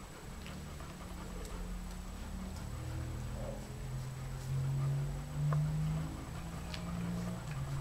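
Alaskan Malamute puppies nursing, making low, steady humming grunts that shift in pitch from one to the next and grow louder about halfway through, with faint suckling clicks.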